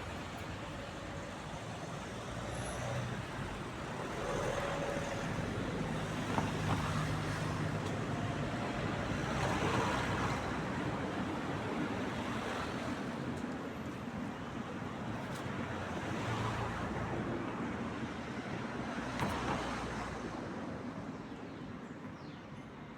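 Road traffic: vehicles passing one after another, the noise swelling and fading as each goes by.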